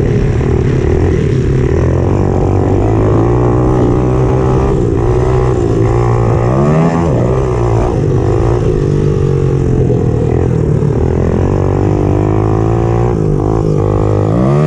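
Pit bike's small single-cylinder engine ridden hard, heard from onboard: the revs rise and fall with the throttle, dropping away about six and a half seconds in before climbing again, and climbing once more near the end.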